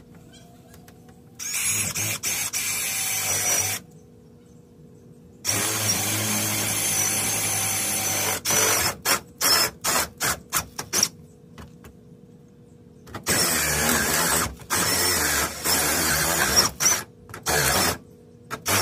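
Cordless drill cutting a hole through a diamond-plate metal trailer wall with a Unibit step drill bit. It runs in bursts of a few seconds with a high-pitched cutting whine, and between the bursts it gives quick stop-start trigger pulses.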